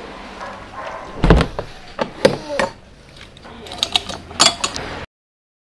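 A hotel-room door being shut and its metal barrel bolt slid and locked: a series of clicks and knocks, the loudest a heavy thud about a second in. The sound cuts off suddenly about five seconds in.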